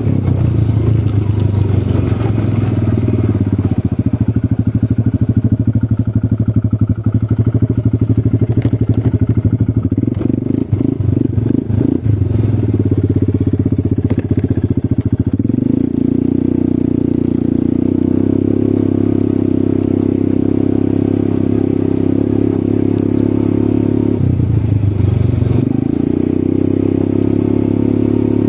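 ATV engine running under way, its note changing with the throttle: it rises about halfway through, drops briefly near the end and picks up again.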